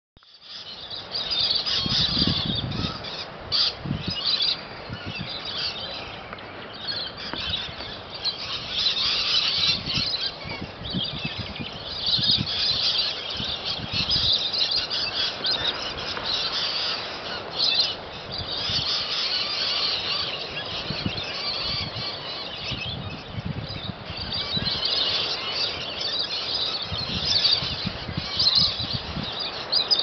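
A flock of lorikeets screeching and chattering nonstop, many shrill calls overlapping at once.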